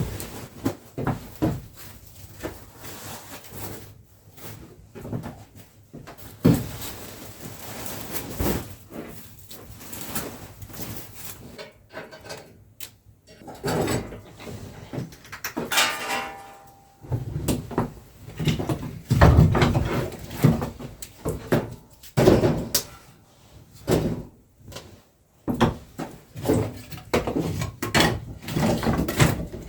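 Irregular knocks, thuds and scrapes of things being handled, with a short creaking tone about halfway through.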